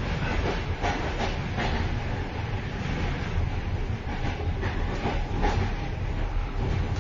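Moving train heard from inside the vestibule between carriages: a steady low rumble with metallic clattering and rattling. Clusters of sharper clacks come about a second in and again around five seconds in.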